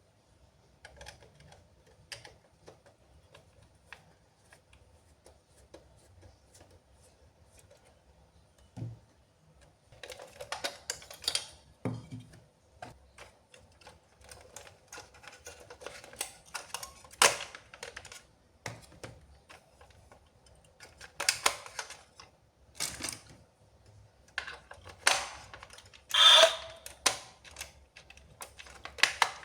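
Plastic toys and packaging being handled: irregular sharp clicks and taps, with short stretches of rustling and crinkling, the loudest about three-quarters of the way through.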